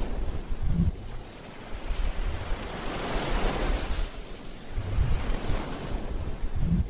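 Rushing noise that swells and ebbs like surf washing on a shore, with short low rumbles about a second in and again near the end.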